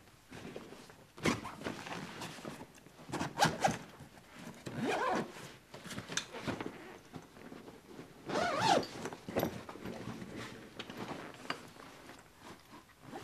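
Zip of a long padded tripod bag being pulled open in several separate strokes.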